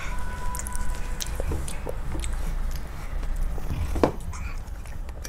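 Scattered light clicks and taps of a spoon and steel mugs being handled on a small table, the sharpest and loudest click about four seconds in, over a low rumble.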